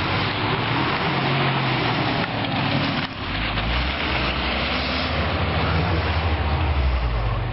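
Jeep Grand Cherokee engine working under load as it climbs a snowy hill, over a steady rushing noise. The low engine note gets stronger after an abrupt change about three seconds in.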